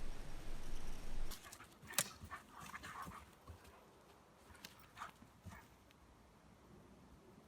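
A dog making a few short, scattered sounds, after a steady low rumble that stops about a second in.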